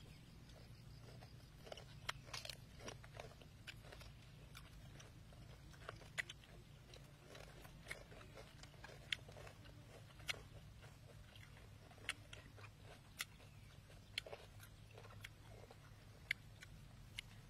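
Faint chewing and crunching of food in the mouth, with scattered sharp crunches about once a second, over a steady low hum.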